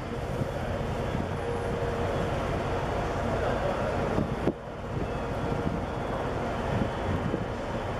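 Steady low rumble and hum of a large container ship under way as it passes close to the shore, mixed with wind on the microphone.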